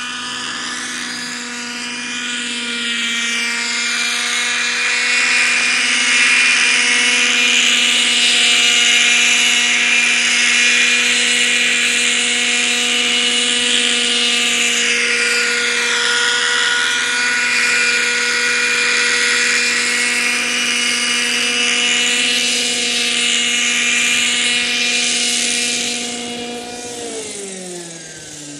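Raptor 50 nitro RC helicopter's glow engine and rotors running at a steady high pitch as it flies in low, growing louder over the first few seconds. Near the end the pitch and loudness fall together as the engine throttles back with the helicopter on the ground.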